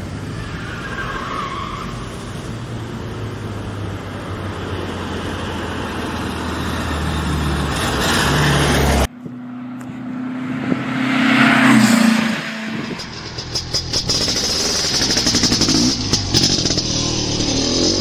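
Vehicle engine running as a car drives, the sound slowly getting louder, then cut off abruptly about halfway through. After the cut comes a different engine sound that swells to a loud peak a few seconds later before breaking up.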